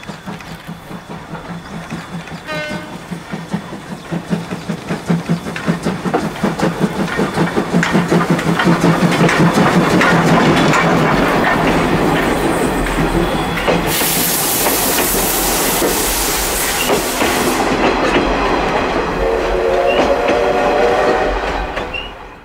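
C12 steam tank locomotive working hard as it approaches, its exhaust beats growing steadily louder. It passes and its coaches roll by with wheel clatter over the rail joints, with a burst of hissing past the middle, then the sound fades at the very end.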